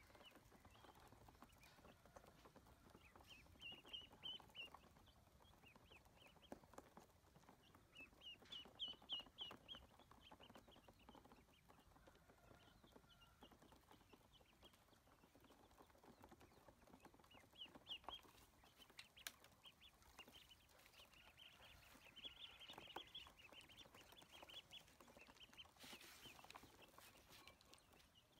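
Faint, high-pitched peeping from a group of ducklings, in quick runs of short calls that come and go.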